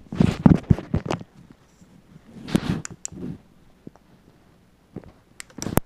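Rustling and handling noises from small fishing jigs and tackle being rummaged through, with a few sharp clicks near the end.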